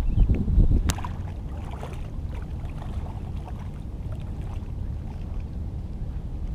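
Wind buffeting the microphone in a steady low rumble. Near the start come a few knocks and a sharp click as the camera is handled and set down.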